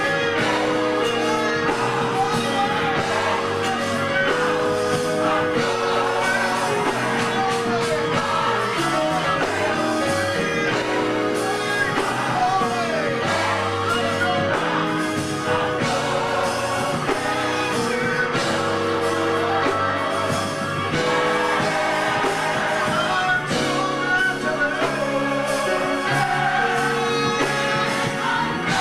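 Live gospel music: a male soloist sings into a microphone over a singing choir, with long held chords from a keyboard underneath.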